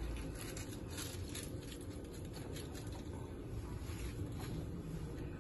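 Faint splashing and dripping as wet spinach leaves are lifted by hand out of a glass dish of soaking water, with light scattered ticks, most in the first second or two and again about four seconds in.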